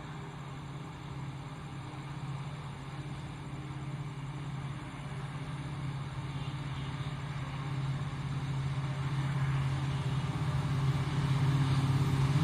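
Approaching express train's locomotive, a steady low engine hum that grows gradually louder as it nears.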